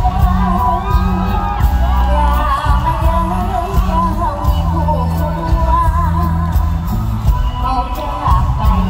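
Live Isan mor lam-style music: a woman sings a wavering melody into a microphone over an amplified band with a heavy, stepping bass line.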